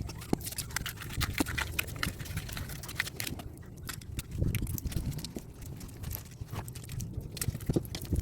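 Irregular clicking and crackling over a low rumble, typical of hands working scrap copper from transformers.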